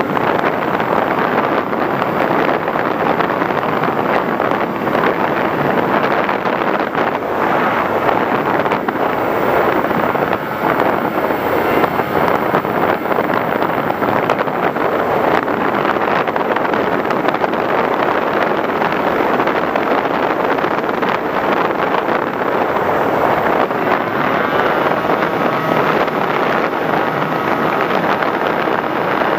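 Steady rushing wind noise and motor noise from an FPV radio-controlled model aircraft in flight, heard through its onboard camera microphone. A faint whine joins in near the end.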